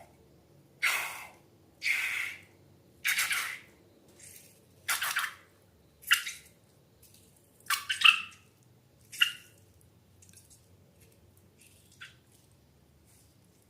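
Slime making a run of short wet squelches and plops, about one a second, the loudest near the middle, then tapering off near the end.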